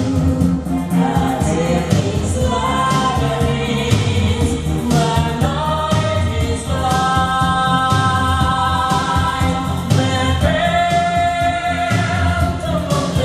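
A soprano singing long, held high notes over a full orchestral backing with strong bass. The notes are sustained for one to three seconds each, with the last long one starting about ten seconds in.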